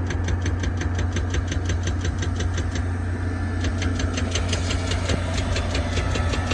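Excavator's diesel engine running with a steady low drone. Over it comes a fast, even ticking, about five times a second, which stops briefly near the middle.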